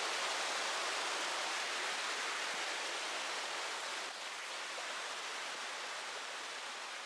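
Mountain stream cascading down a rocky ghyll: a steady rush of falling water that slowly fades, with a small drop about four seconds in.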